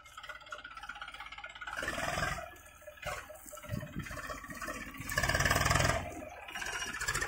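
Eicher 380 40 HP tractor's diesel engine working under load, hauling a trolley full of soil up a rise. The engine sound surges twice, about two seconds in and more strongly around five to six seconds in.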